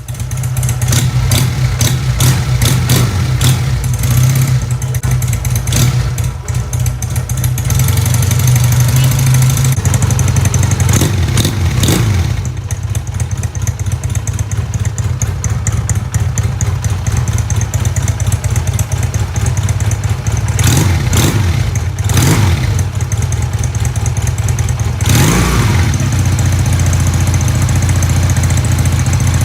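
Honda CD 200 Road Master motorcycle engine running on its stock exhaust, idling steadily with a few short throttle blips that rise and fall in pitch, two close together around eleven to twelve seconds in, two more around twenty-one to twenty-two seconds, and one near twenty-five seconds.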